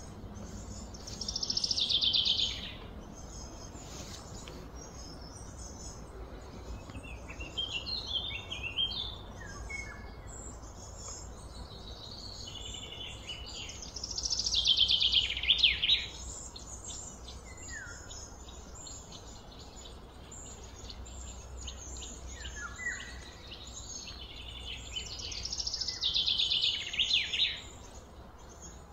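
Birds singing: a loud, rapid high phrase of about two seconds, repeated three times roughly every twelve seconds, with softer chirps between, over a steady low rumble.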